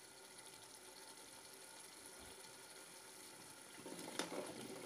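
Mutton curry bubbling faintly in the pot, then about four seconds in a bowl of cut potato pieces is tipped in: a brief burst of soft thuds with one sharp knock.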